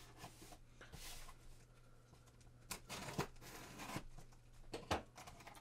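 Folding knife slitting the packing tape along the seams of a cardboard shipping box: several short scraping cuts, with the box shifted and handled between them.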